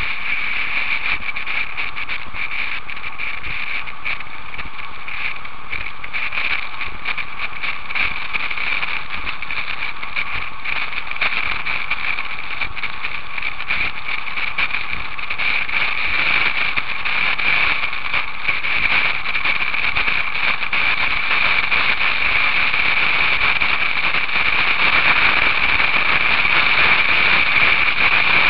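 Steady rush of wind and water on a hull-mounted camera aboard a racing trimaran sailing at speed, with a steady high-pitched tone running through it. It grows a little louder toward the end.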